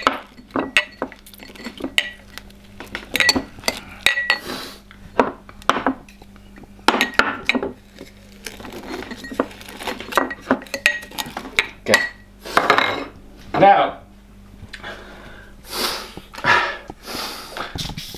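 A muddler pounding lime and sugar in a drinking glass, giving irregular knocks and clinks against the glass.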